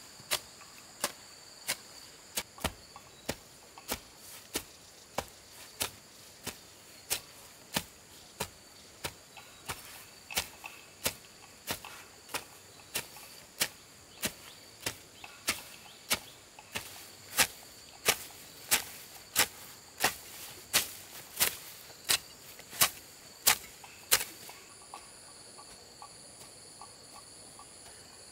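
Steady hand hammering: sharp strikes at about one and a half a second, louder in the second half, stopping shortly before the end. A constant high insect drone runs underneath, with a pulsing insect call joining after the hammering stops.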